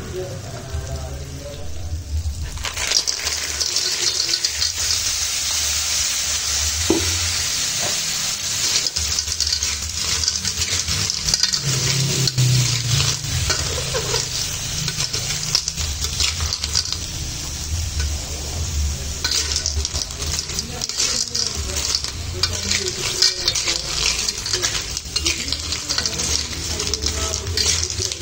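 Sizzling in a hot wok as sea snails in their shells are stir-fried in oil with a spice paste, the sizzle growing louder a couple of seconds in. A metal spatula scrapes the wok while the shells clatter against the metal in many quick clicks.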